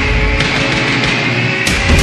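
Loud intro music with sharp drum hits.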